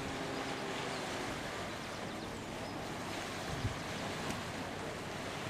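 Sea washing against the shore in a steady wash of surf noise, with a little wind.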